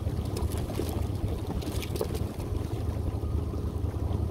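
Boat motor running slowly at idle, a steady low rumble, as the boat creeps along a trotline, with scattered light ticks over it.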